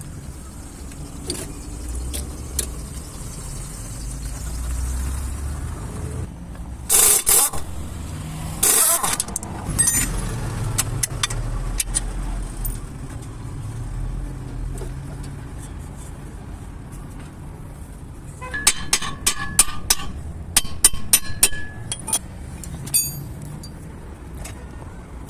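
Low vehicle rumble, broken by two loud, short bursts of hissing noise about a third of the way in and by a quick series of metallic clinks late on.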